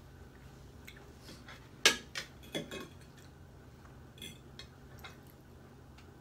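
Cutlery clinking and scraping on dinner plates, with a cluster of sharp clinks about two seconds in, the first the loudest, and a few fainter taps later.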